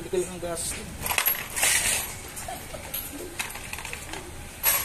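Light metallic clinks and clattering of metal tools and small parts being handled, with a sharper clink near the end.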